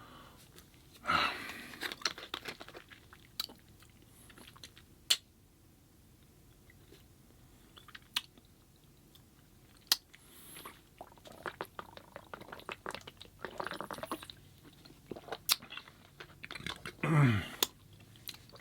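A person chewing and biting food close to the microphone, in bouts separated by pauses, with sharp wet mouth clicks and some crunchy bites. Near the end comes a short vocal sound that falls in pitch.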